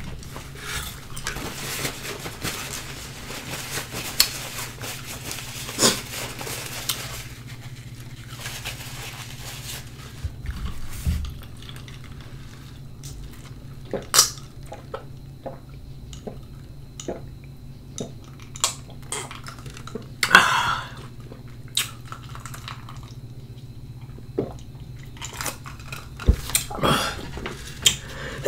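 Close-up table and eating sounds: a paper napkin rustling over a plate for the first several seconds, then scattered light clicks and taps of dishes and cutlery, with sips from a mug.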